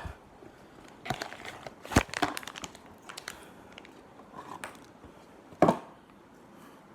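Packaging being handled and tugged as a stuck Leatherman multi-tool is worked out of its box: scattered crinkling and rustling, with two sharp knocks, one about two seconds in and one a little before the end.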